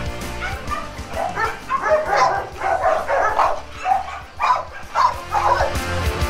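American bully dogs whining and yipping in a run of short, high cries, over background music.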